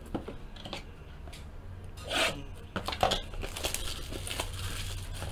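Plastic shrink-wrap being torn and peeled off a Donruss Signature football card box, crinkling and rubbing against the cardboard. A short, sharp rip comes about two seconds in, followed by steadier rustling.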